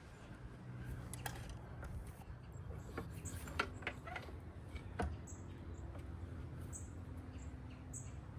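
Scattered light clicks and knocks of parts and tools being handled while a lower unit is fitted to an outboard motor, with a few short high chirps and squeaks over a low steady hum.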